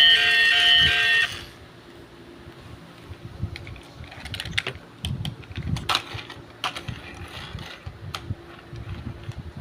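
Background music cuts off about a second in, followed by irregular clicks and light knocks of objects being handled.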